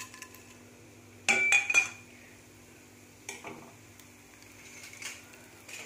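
Small steel bowl clinking against a nonstick frying pan as spices and chana dal are tipped into hot oil: a quick run of sharp, ringing metal clinks about a second in, then a few lighter knocks.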